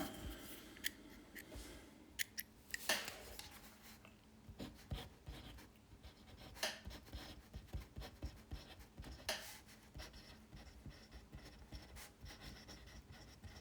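Faint handling of a brass mechanical pencil: scattered small clicks and taps at irregular intervals, with soft rubbing and scratching between them.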